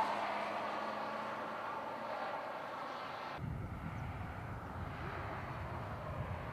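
Cars running on a race circuit, a steady hiss of tyres and motors with a faint hum. About three and a half seconds in, the sound cuts abruptly to a low rumble of wind on the microphone, with the cars much fainter.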